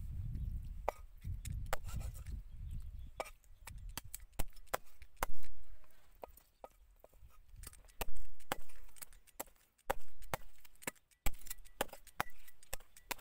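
Meat cleaver chopping raw chicken into pieces on a round wooden chopping board: irregular sharp chops, a few of them much heavier blows, with lighter taps in between.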